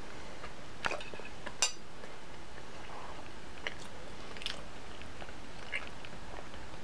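A person chewing a mouthful of grilled ham and butter beans close to the microphone. A handful of short wet mouth clicks and smacks are heard, the loudest about a second and a half in.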